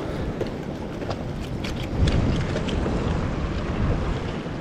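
Wind buffeting the microphone over small waves washing among shoreline rocks, with a few light clicks and taps in the first couple of seconds.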